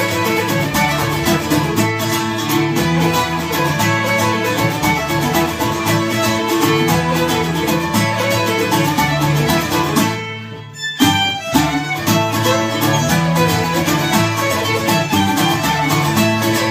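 Fiddle and Irish bouzouki playing a folk tune together, the bowed melody over the bouzouki's plucked accompaniment. About ten seconds in, the music drops out for a moment and comes back in with a sharp accent.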